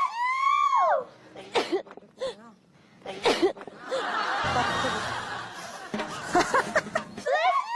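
People laughing and snickering, most of all from about four seconds in. A short pitched sound that rises and falls is heard at the start and again near the end.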